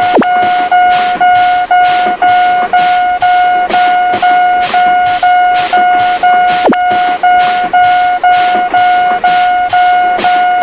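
Railroad crossing warning bell ringing, an even, repeating single-pitched ding a little under twice a second. Two short sharp clicks cut in, one right at the start and one about two-thirds of the way through.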